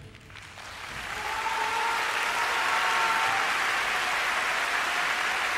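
Large audience applauding at the end of a wind band performance. The clapping rises out of near quiet about half a second in and builds to a steady level within about two seconds.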